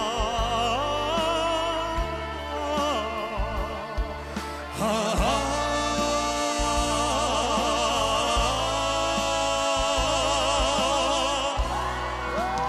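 Two male voices singing a ballad-style trot duet over instrumental backing. From about five seconds in they hold one long note with wide vibrato, which breaks off near the end into a softer phrase.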